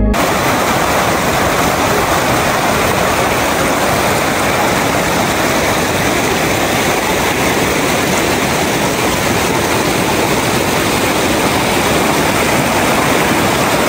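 Shallow mountain stream rushing over stones and small rapids, a steady, loud rush of water.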